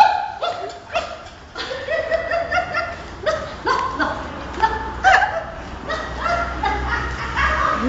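People laughing, in repeated gliding bursts of voice with a little mixed-in talk.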